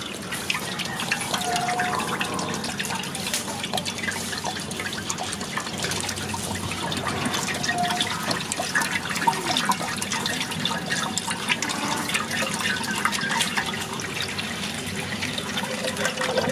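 A thin stream of milky junnu mixture pouring and splashing into a pool of the same liquid in a large metal vessel: a steady liquid splashing with many small crackling drips.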